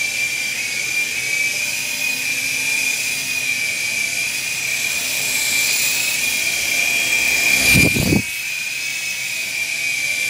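Small electric remote-control helicopter (Gyro S113G) in flight, its motor and rotors giving a steady high whine. About eight seconds in there is a brief burst of loud rumbling noise.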